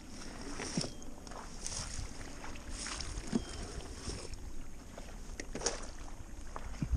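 Stand-up paddleboard paddle dipping and pulling through calm water, with irregular splashes and drips about once a second.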